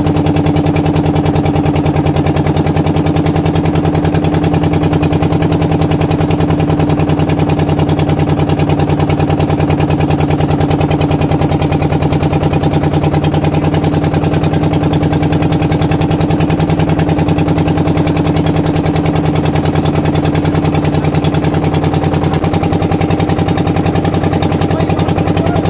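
Motorboat engine running steadily while the boat is under way: an even, rapid pulsing hum of several steady tones, its pitch shifting slightly about 22 seconds in.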